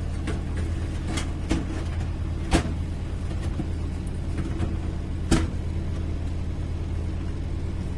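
Scattered clicks and knocks as an ATX power supply unit is set into a desktop PC case and handled into position, with two sharper knocks about two and a half and five and a half seconds in. A steady low hum runs underneath.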